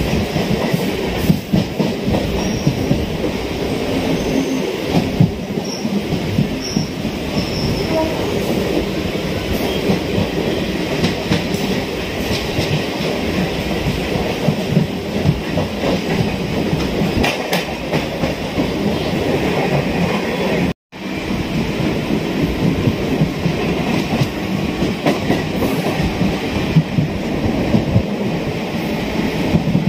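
Chennai suburban electric multiple-unit train running: a steady rumble with the clatter of wheels over rail joints. The sound cuts out for a split second about two-thirds of the way in.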